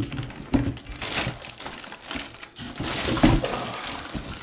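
Cardboard box flaps and plastic wrapping rustling and crinkling as hands dig a packed item out of the box, with irregular handling knocks, the loudest about three seconds in.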